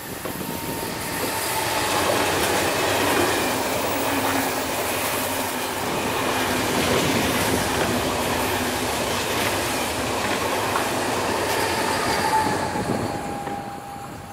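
Lok2000 electric locomotive and KTT double-deck coaches passing at speed: loud wheel-on-rail rolling noise builds over the first couple of seconds, holds while the coaches go by, and fades near the end. A thin high squeal shows briefly near the start and again near the end.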